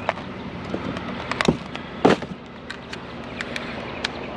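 Irregular knocks, clicks and clatter of curbside junk being handled, with two louder knocks about one and a half and two seconds in.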